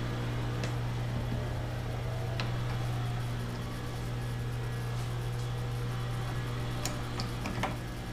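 A steady low hum with a few light clicks, the loudest a short cluster near the end.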